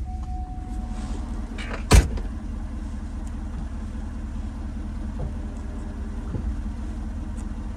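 Vehicle engine running steadily at low speed as it crawls over a rough off-road track, with one sharp, loud bang about two seconds in.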